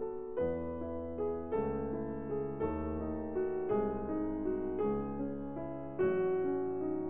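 Background piano music: held chords that change about once a second.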